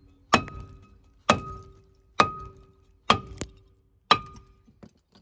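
A rusted steel brake disc on a van's front hub is struck hard about six times, roughly once a second, and rings after each blow. The blows are knocking the disc loose from the hub.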